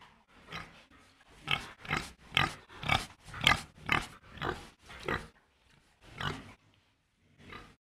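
Pig grunting: a rapid string of short grunts, about two a second, loudest in the middle and thinning out toward the end.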